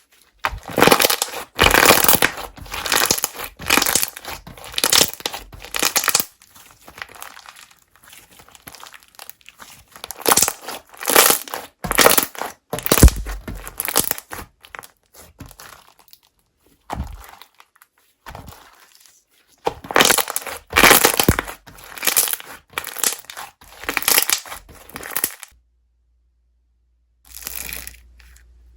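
Slime being squeezed and pressed by hand, crackling and crinkling in three main spells of a few seconds each, with softer crackles in between.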